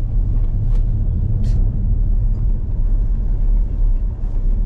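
Steady low rumble of a car driving along the road, engine and tyre noise.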